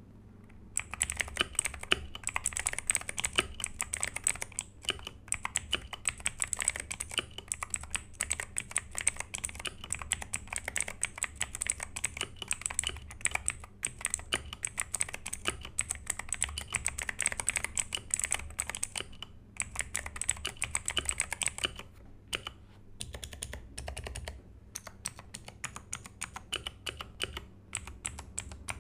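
Fast, continuous typing on a mechanical keyboard with clicky blue switches, each keystroke a sharp click. It pauses briefly and then becomes sparser, slower key presses for the last several seconds.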